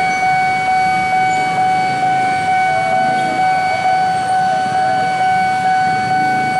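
Railway level-crossing warning bell sounding: a steady electronic tone that pulses about twice a second. Underneath is the low rumble of approaching diesel locomotives.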